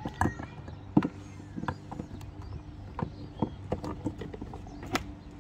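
Short plastic clicks and knocks, a dozen or so at uneven intervals, as a travel trailer's outdoor shower head and hose are stowed in their compartment and the hinged plastic hatch door is swung shut and latched. A steady low hum runs underneath.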